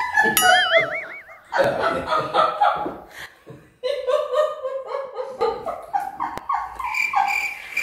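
Several people laughing together at a table, in bursts with a short lull about three and a half seconds in. A brief warbling tone sounds just after the start.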